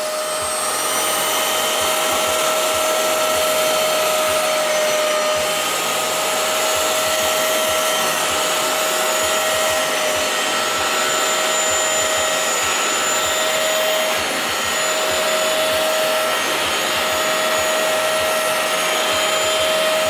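Hoover CleanSlate portable carpet and upholstery cleaner running steadily: a constant motor whine over the rush of its suction as it sprays and extracts water from fabric upholstery.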